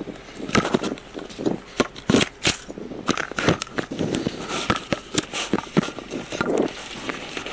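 Body-worn camera microphone being rubbed and knocked by a hand and clothing: irregular scraping, rustling and clicking handling noise.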